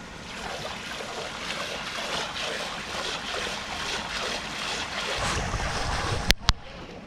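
Water splashing and churning at the pond surface close below the dock as a barramundi strikes at a lure worked in a figure-8. The splashing grows louder toward the end, and two sharp knocks come about a second before the end.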